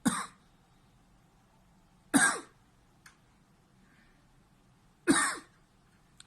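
A man's single sharp coughs, three of them a few seconds apart. They are reflex coughs set off by pressing on a schwannoma of the right vagus nerve in his neck.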